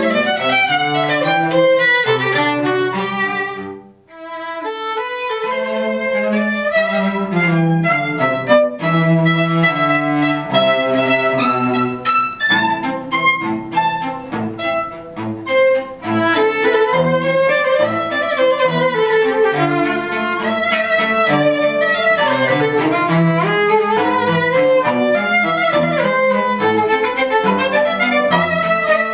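Violin and cello playing a duet, the violin carrying the melody over the cello's lower line. About four seconds in the music briefly drops away, then a new passage begins.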